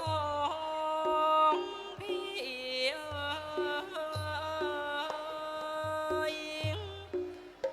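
Thai classical piphat ensemble music: a sustained melody of held, sliding notes over occasional low drum strokes.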